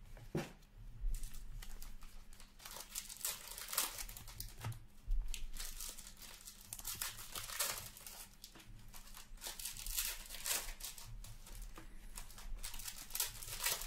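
Foil wrapper of a hockey trading card pack being torn open and crinkled by hand, an irregular run of crackles and short rips.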